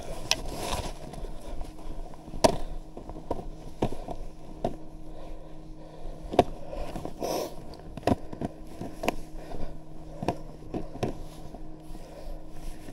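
Skis sliding through fresh powder snow, with irregular sharp clicks and knocks about once a second from the skis and poles.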